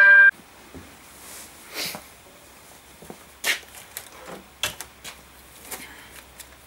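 A loud music sting cuts off abruptly a moment in. It is followed by scattered light clicks and knocks of tools and metal parts being handled on a workbench.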